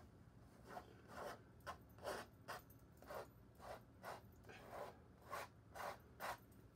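A paintbrush's bristles scraping across a stretched canvas in about a dozen short, quick strokes.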